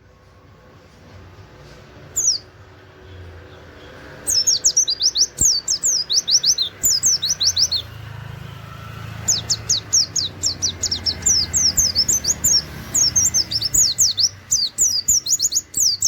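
White-eye (pleci) singing its rapid 'nembak' song of quick, high, falling notes. There is a single short call about two seconds in, then a burst of fast notes from about four to eight seconds and another longer one from about nine seconds on.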